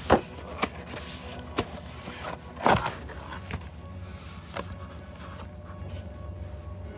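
Cardboard camshaft box being opened by hand: a series of sharp snaps and knocks of cardboard with short rustles between, the loudest a little under three seconds in, then quieter handling.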